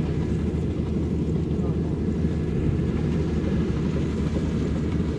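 Maxxi Bimo combine harvester running steadily under way, a continuous low engine and machinery drone.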